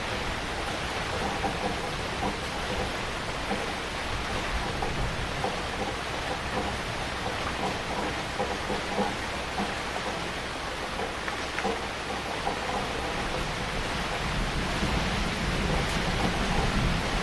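Heavy rain falling steadily. Near the end a low rumble of thunder begins to build.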